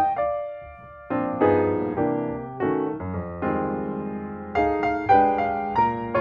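Piano music: struck chords and melody notes that ring and fade, with a short pause about a second in before the playing resumes.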